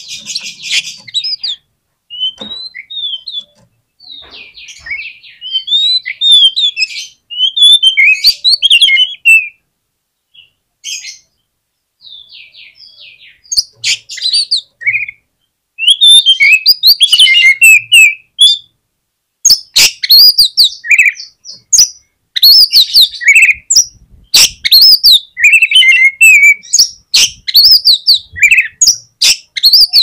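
Oriental magpie-robin (kacer) singing a varied song of short whistles, chirps and rapid high notes in phrases broken by brief pauses. The song becomes denser and louder about halfway through.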